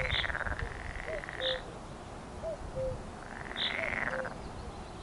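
Frogs calling: two trilling, pulsed calls about a second long, with short low notes repeating every second or so between them and a few brief high chirps.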